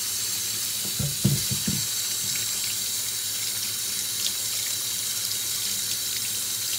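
Kitchen tap running steadily into a stainless steel sink, the stream splashing over hands as they scrub potatoes under it.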